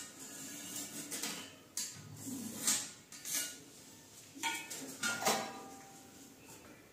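A ceramic western toilet pan being shifted and lifted on a tiled floor: a series of faint porcelain knocks and scrapes against the tile, some ringing briefly, dying away after about five and a half seconds.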